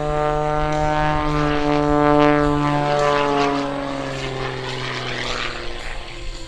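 Single-engine MX2 aerobatic monoplane's piston engine and propeller running at power, a loud buzzing drone. Its pitch slides steadily lower and it grows fainter after about three seconds.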